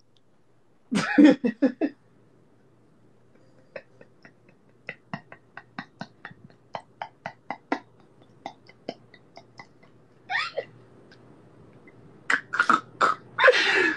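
A woman laughing hard: a loud burst of laughter about a second in, then a long run of short, quieter gasping pulses, and louder bursts again near the end.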